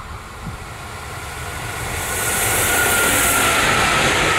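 Crossrail class 185 electric locomotive (a Bombardier TRAXX) approaching and passing close at speed. Its rush of rail and air noise swells over the first two seconds, with a high whine that drops slightly in pitch as it goes by.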